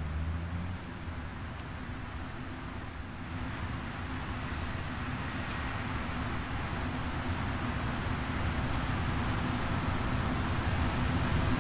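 Steady low city traffic rumble with a faint hum, swelling gradually louder.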